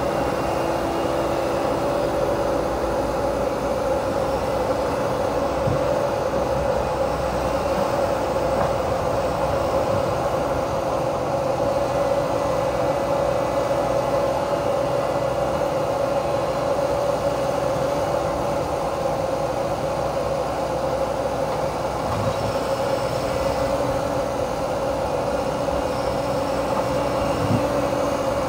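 Menzi Muck walking excavator running a hydraulic flail mower head: a steady machine drone with a constant mid-pitched whine, unchanging throughout.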